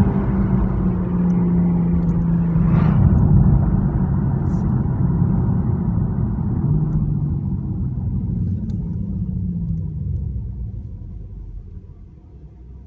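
The 2020 Toyota Supra's turbocharged 3.0-litre BMW inline-six engine and twin exhaust, heard from inside the cabin under acceleration. It holds a steady note with road noise for most of the time, then dies down near the end.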